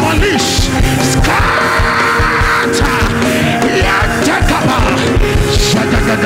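Loud live church band music with a steady beat and held chords, under a congregation praying aloud and shouting.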